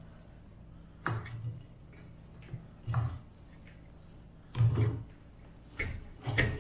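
Scattered clunks and knocks of heavy steel parts being handled and seated as a wheel hub assembly is fitted onto a front axle steering knuckle, about five in all, the loudest a double clunk about two-thirds through.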